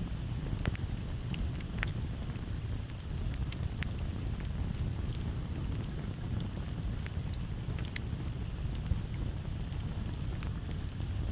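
Campfire crackling: irregular sharp pops and snaps over a steady low rumble of the burning wood. Crickets trill steadily and high in the background.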